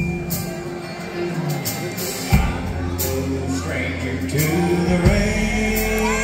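Live country band playing: fiddle, guitars and drums over long held bass notes that change twice.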